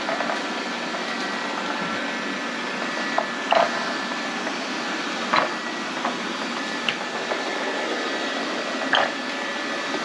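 Lefant M210B robot vacuum running steadily: a motor hum with a thin high whine, broken by a few short knocks as it runs into things.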